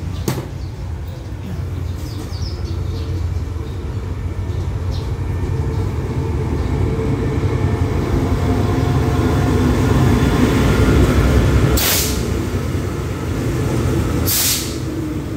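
SRT diesel-electric locomotive No. 5206 drawing an express train into the station, its engine and wheels rumbling louder as it nears. Near the end there are two short hisses of air from the train's air brakes.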